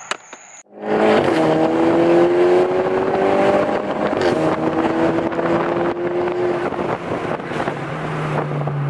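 Mk6 VW GTI's turbocharged four-cylinder engine, heard from inside the cabin, accelerating: its note starts about a second in and climbs, drops at a gear change about four seconds in, climbs again, then settles to a steadier, lower drone near the end.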